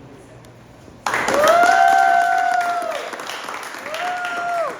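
A group breaks into applause about a second in, with two long rising-then-falling "woo" cheers over the clapping.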